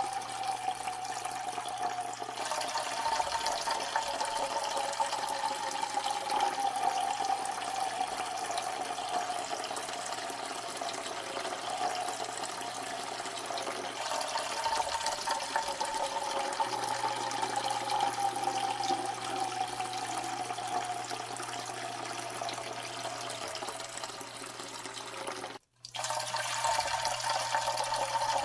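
A steady stream of water splashing into water, a continuous trickling pour. Its pitch slowly sinks and jumps back up about twice, and it cuts out for a split second about 26 seconds in before carrying on.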